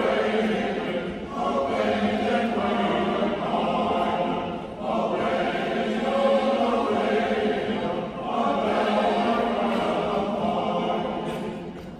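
Large men's chorus singing in long held phrases, with a brief break about every three and a half seconds.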